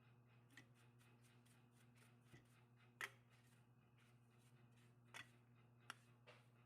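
Several faint, sharp clicks and small handling taps, the loudest about three seconds in, over a steady low electrical hum.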